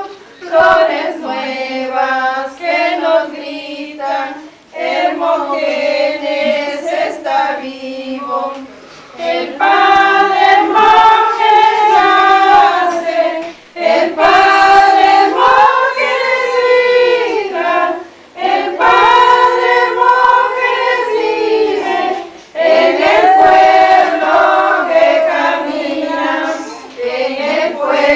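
A small group of women and girls singing a hymn together, unaccompanied, in sung phrases broken by short breaths every four or five seconds.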